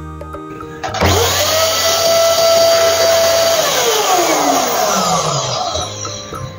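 A small electric motor with a rush of air switches on about a second in and spins up quickly to a steady whine. After a couple of seconds it is cut off and winds down, its pitch falling over about two seconds.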